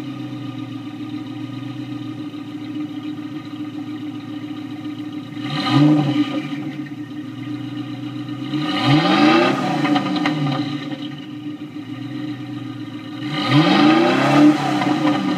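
Maserati Shamal's twin-turbo V8 exhaust idling steadily, blipped three times: a short rev about six seconds in, then two longer revs that rise and fall back to idle.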